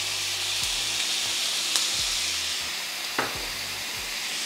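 Strips of marinated beef sizzling in smoking-hot sunflower oil in a frying pan, a steady loud sizzle as the meat hits the pan. A sharp click comes nearly two seconds in, and a brief falling squeak a little after three seconds.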